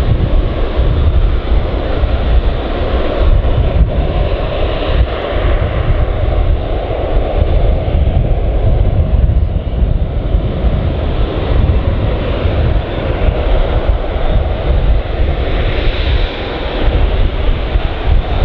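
Bell Boeing CV-22B Osprey tiltrotor hovering and moving slowly in helicopter mode: its two proprotors and turboshaft engines make a loud, steady rotor and turbine noise, growing a little louder near the end. Wind is heard on the microphone.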